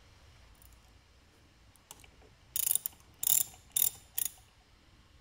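Socket ratchet wrench clicking in four short, quick spells about halfway in, as it turns a fitting on an air compressor's pressure regulator.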